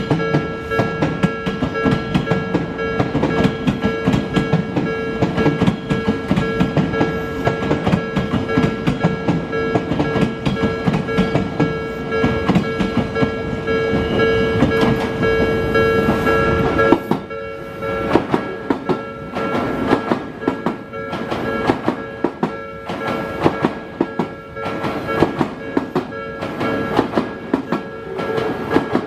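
Japanese level-crossing alarm ringing in steady, evenly repeated strokes while an Odakyu Line commuter train passes with clattering wheels. The train noise dies away about 17 seconds in and the crossing bell keeps ringing.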